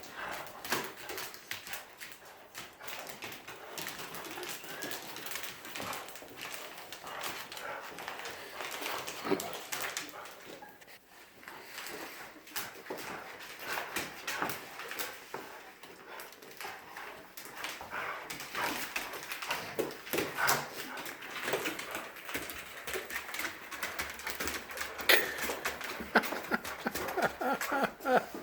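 Dogs tugging and wrestling over a toy, with dog whimpers and scuffling and many short clicks and knocks throughout; pitched whines cluster near the end.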